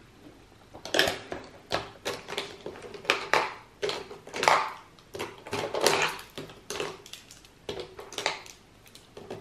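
Lip liner pencils clicking and clattering against each other and against the plastic walls of a clear acrylic makeup organizer as they are picked out by hand, in irregular sharp knocks about one or two a second.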